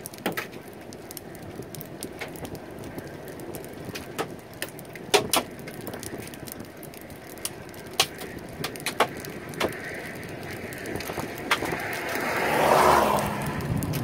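Steady wind noise with scattered sharp clicks. A louder rushing swell rises and fades over about a second and a half near the end.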